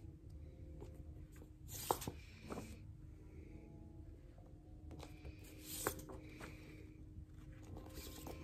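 Paper rustling as a vinyl record's printed lyric insert is handled and its pages turned, with two louder rustles, one about two seconds in and one near six seconds.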